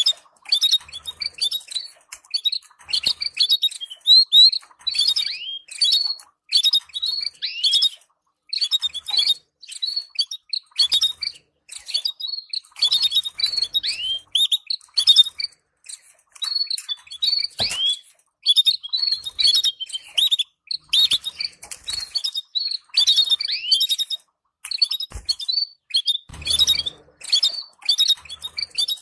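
Canaries chirping: quick runs of short, high chirps and twitters with brief pauses between them. This is the soft chatter played to stimulate canary breeding pairs.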